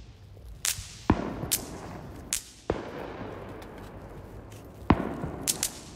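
Snap pops (bang snaps) thrown on the ground crackling: a scatter of small sharp snaps, with three louder bangs, about a second in, near the middle and near the end, each trailing off in an echo.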